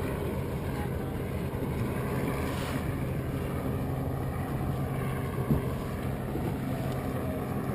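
The tender's motorboat engine running at a steady hum, with wind buffeting the microphone. A single sharp knock comes about five and a half seconds in.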